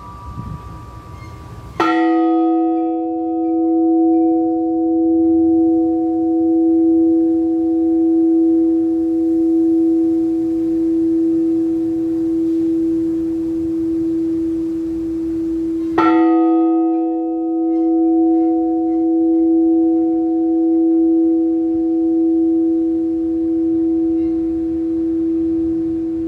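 A large Orthodox church bell is struck twice, about fourteen seconds apart. Each stroke rings on long with a slowly wavering hum. At the start the ring of a higher, smaller bell is fading out.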